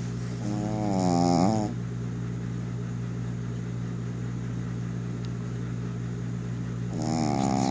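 Snoring from someone asleep: two long, drawn-out snores, one about a second in and another starting near the end. Each is a pitched drone that slides down in pitch, over a steady low hum.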